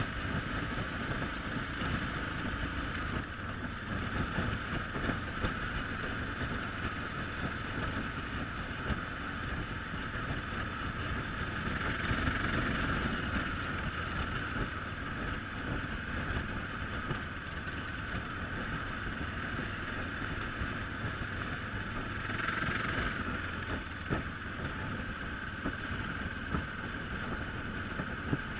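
Dirt bike engine running steadily as the bike rides along a paved road, swelling briefly twice.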